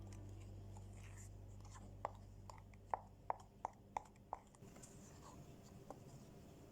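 A run of about seven light, sharp taps, roughly three a second, in the middle of a faint stretch, with a low hum fading out at the start.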